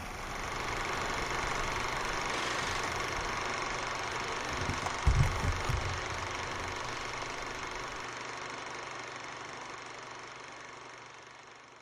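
Small two-stroke VéloSoleX moped engines running steadily as the group waits, with a few low thumps about five seconds in. The sound fades out near the end.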